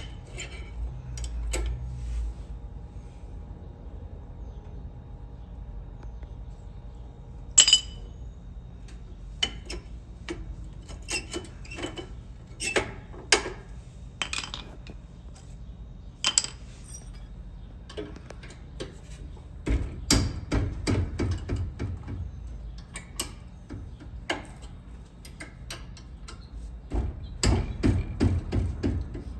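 Irregular metallic clinks and knocks, like hand tools and metal parts being handled, with a sharp strike about seven and a half seconds in and busier runs of knocks in the last third.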